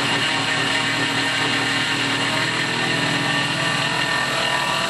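X2 mini mill's spindle running at about 2500 RPM while a 3/4-inch high-speed steel end mill takes a 0.025-inch-deep cut in mild steel under coolant spray: a steady whine with several held tones over a dense hiss.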